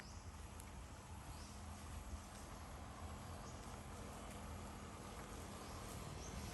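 Faint outdoor ambience: a low steady hiss with soft, short high chirps recurring about once a second.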